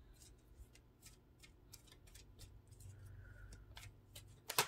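Faint, irregular light clicks and ticks of tarot cards being handled, with one sharper click near the end.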